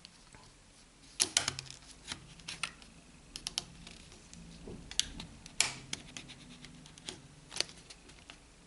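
Plastic clips of an Orange Fova smartphone's frame clicking loose as a plastic card is slid around the seam to pry the frame off. Irregular sharp clicks, a few close together, with some light scraping.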